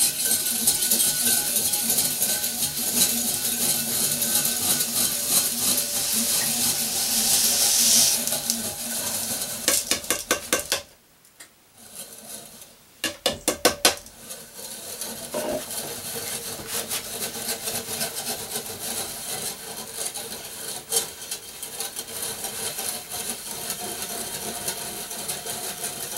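Lye poured into water in a glass measuring jug while a metal whisk stirs it, scraping and clinking against the glass. The sound is hissy with pouring at first, breaks off for a moment about eleven seconds in, then goes on as steady whisking with light clinks.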